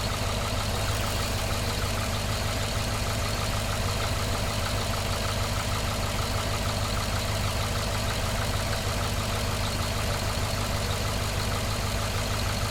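Cadillac engine idling steadily. The engine has set misfire codes for cylinders 1 and 7 plus a random misfire code.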